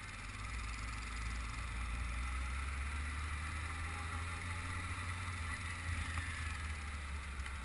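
Motorcycle engine running steadily under way, a low drone that firms up about half a second in, mixed with wind and road noise.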